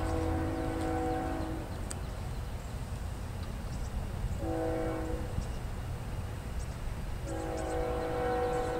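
Multi-note air horn of CSX ES44AH locomotive 3123 sounding the grade-crossing signal: a long blast ends about a second and a half in, a short blast follows about four and a half seconds in, and a final long blast begins near the end. A low rumble runs underneath.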